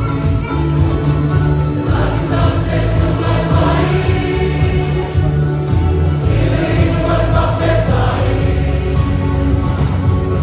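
Samoan church choir singing a hymn in many voices over a bass-heavy accompaniment, loud and continuous.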